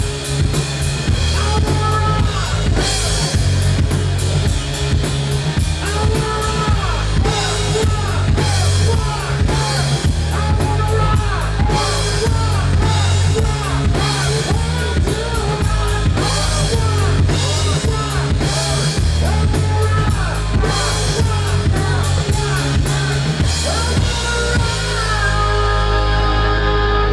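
Live rock band playing: drum kit, electric guitars and bass. About three seconds before the end the drums stop and a single held chord is left ringing.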